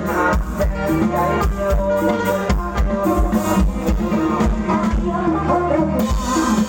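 Live band playing dance music, with drums keeping a steady beat under sustained instrument lines.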